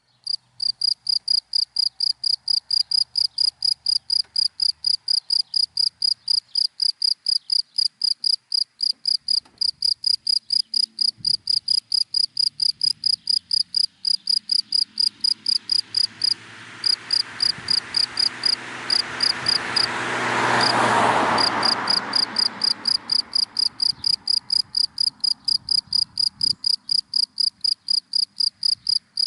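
A cricket chirping in dry grass: a steady rhythm of short, high chirps, about five a second. In the middle a car passes by, its noise swelling and fading over several seconds.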